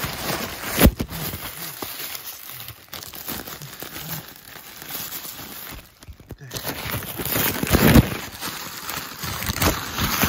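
Packaging being crinkled and torn open by hand, with two sharp loud rips or snaps, about a second in and near the end.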